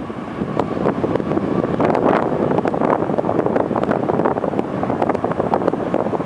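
Wind buffeting the camera microphone: a loud, steady rush with constant crackling gusts.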